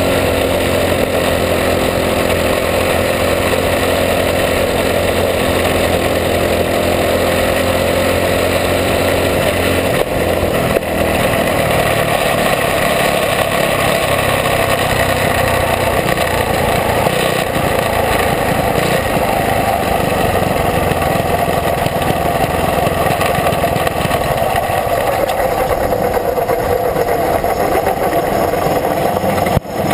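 Champ kart's small engine running loud from on board the kart, steady for the first ten seconds or so, then rougher and less even as the kart slows and rolls off the track.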